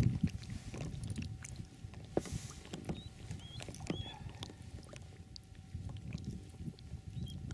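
Water splashing and slapping as a hooked fish is grabbed by hand at the side of an inflatable boat, with scattered small knocks and clicks of handling against the hull. A few short high chirps sound about three and a half to four seconds in.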